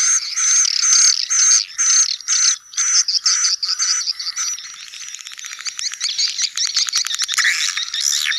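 Recorded colony calls of edible-nest swiftlets, a swiftlet-house lure track mixing adult and young birds: repeated chirps about two to three a second. About five seconds in, a fast train of clicks takes over, and the chirping returns near the end.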